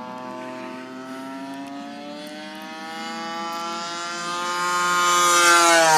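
36cc gas engine of a large RC Dewoitine model airplane, turning an 18x10 Xoar propeller, flying in toward the listener: the engine note grows steadily louder with its pitch slowly rising, then starts to drop as the plane passes by near the end.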